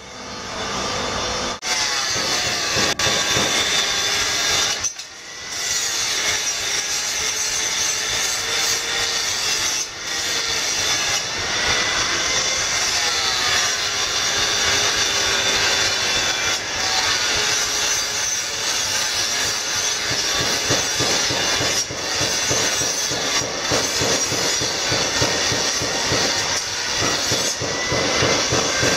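Handheld angle grinder running and grinding the steel of a curved parang machete blade, its whine wavering up and down in pitch as the disc bites and eases off.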